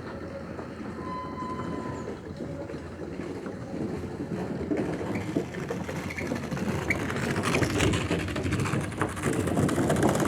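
Clatter of train wheels on rails as a train passes, a continuous rumbling clack that grows louder toward the end.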